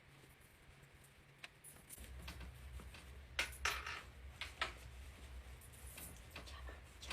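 A few sharp clicks and clinks of small hard objects being handled, loudest in a quick cluster around the middle, over a low steady hum that starts about two seconds in.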